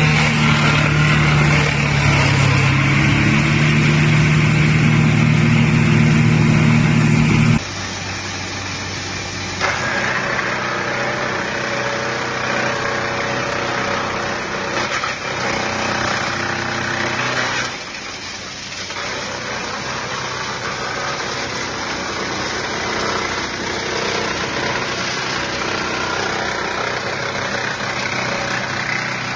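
Industrial wood crusher running steadily with a low, even engine-like hum. About seven and a half seconds in, the sound drops abruptly to a quieter, hissier running noise.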